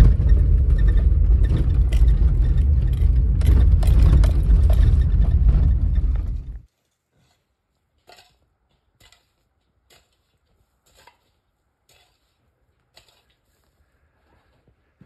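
A vehicle driving on rough ground, heard from inside the cab: a loud low rumble with rattles, cut off suddenly about six and a half seconds in. After it come faint single knocks about once a second, hand tools striking the trail tread.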